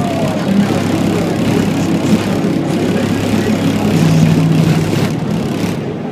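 Twelve Skar ZVX-15 subwoofers playing low bass at extreme volume, heard from inside the Cadillac Escalade's cabin, with the recording overloaded into a harsh, buzzing distortion. The low notes change pitch a few times and ease off near the end.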